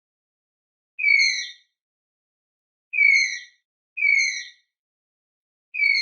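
Tapir whistling: four short, high-pitched calls, each dropping slightly in pitch, spaced one to two seconds apart, the last cut off at the end.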